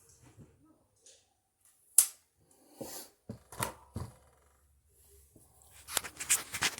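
Sharp clicks and knocks from a tripod stand as it is handled and its leg sections are extended. The loudest click comes about two seconds in, a few more follow, and a quick run of clicks comes near the end.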